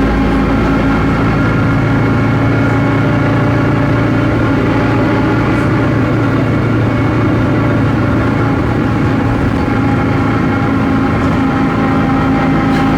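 Volksbus 17.230 OD bus running at a steady speed: its MAN D0834 four-cylinder diesel and driveline make a loud, steady hum with a held whine. The growl comes from a noisy differential.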